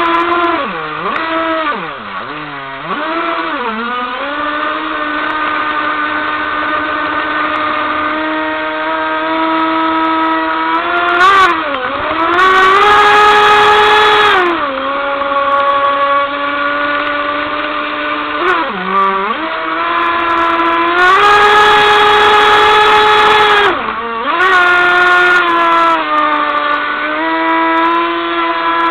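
The high-pitched whine of an RC boat's Leopard 4074 2150kv brushless motor at speed, heard from on board. It holds steady for stretches and several times drops sharply and climbs back as the throttle comes off and on. A rushing hiss of water and spray runs underneath.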